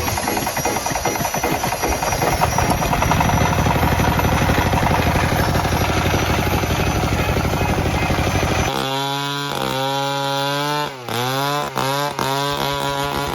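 Small stationary diesel engine running with a fast, rough knocking beat. About two-thirds of the way through, the sound switches abruptly to a smoother, steady engine tone that dips in pitch and recovers twice.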